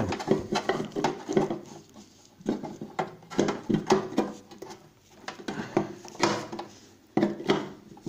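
Handling clicks and knocks as a microwave oven's turntable motor has its wire connectors pushed on and is fitted against the oven's sheet-metal base. The sounds come in irregular clusters with short pauses between them.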